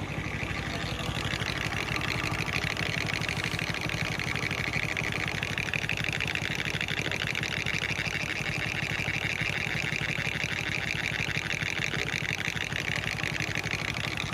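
Hero Honda Splendor Plus single-cylinder four-stroke engine idling with the clutch lever pulled in, a fast metallic rattle from the clutch side growing stronger about a second and a half in. The noise comes from a worn clutch bearing.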